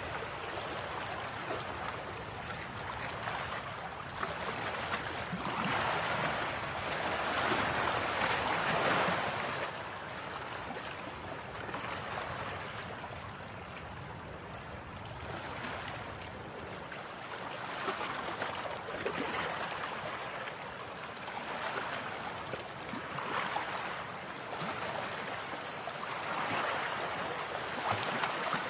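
Rushing water, a steady hiss that swells and eases every few seconds.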